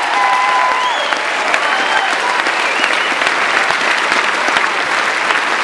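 Audience applauding at the end of a song, with the last held sung note stopping about a second in.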